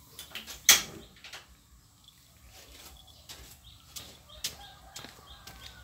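Several cats eating cooked rice from one shared bowl: scattered small wet clicks and smacks of chewing, with one sharp click about a second in.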